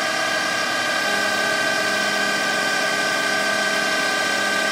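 CNC metal lathe running at full spindle speed just after spinning up, a loud steady whine made of several tones, while the tool turns down brass stock. A lower hum joins about a second in.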